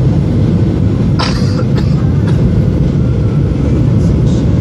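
Steady low roar of a jet airliner's cabin during the descent to land: engine and airflow noise heard from a window seat beside the wing-mounted engine. A couple of brief sharp sounds about a second in.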